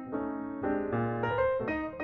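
Background music: a keyboard tune of held notes and chords that change every half second or so.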